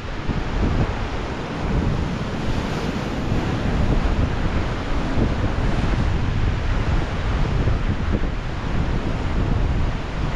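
Ocean surf breaking and washing over shoreline rocks in a steady rush, with wind buffeting the microphone in gusts.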